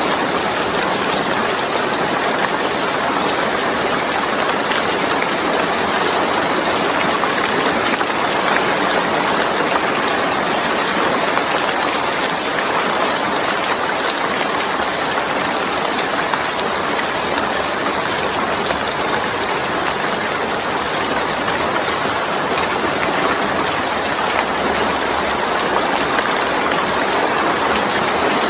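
Steady rain: an even, unbroken hiss of falling water.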